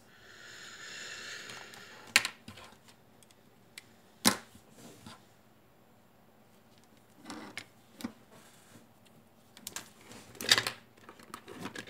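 Hands handling a bare USB hub circuit board and its USB cable on a cutting mat: a rustle for about two seconds, then a few sharp clicks and knocks as the board and plug are set down. A last cluster of clicks near the end comes as the USB plug is pushed into a power bank.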